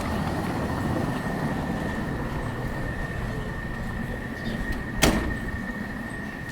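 Street traffic: a motor vehicle passing with a low rumble that swells early and then fades, over a steady thin high tone. About five seconds in comes a single sharp bang, like a door or a metal knock.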